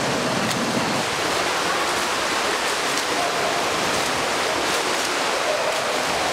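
Steady splashing and churning water from a swimmer doing front crawl in a pool.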